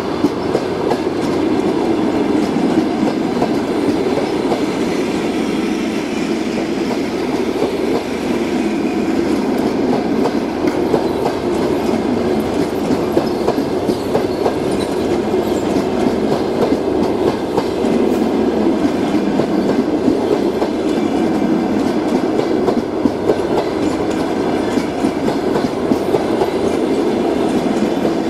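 Passenger coaches of a departing train rolling past, a steady rumble of wheels on rails with frequent irregular clicks and clatter from the wheels over the rail joints.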